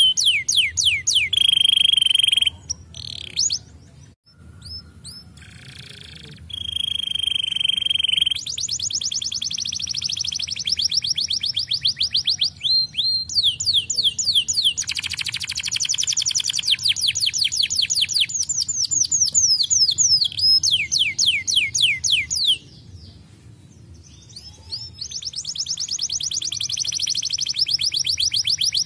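Domestic canary singing: long rolling trills of rapidly repeated falling whistled notes, broken by steady held whistles. There are two brief quieter lulls, a few seconds in and about three-quarters of the way through.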